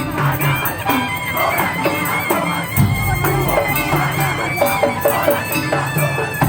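Traditional-style music: a bowed or reed melody line over a steady, repeating drum beat.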